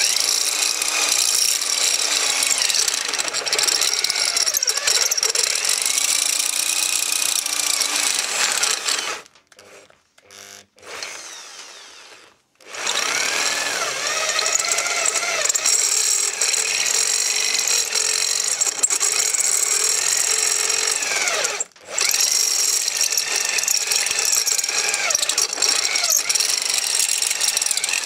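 Cordless drill turning a step (cone) drill bit as it cuts a hole in a copper boiler tube plate, its whine rising and falling with trigger and load. The drilling stops for about three seconds around a third of the way in, with a couple of short blips, then runs on with one brief pause near the end.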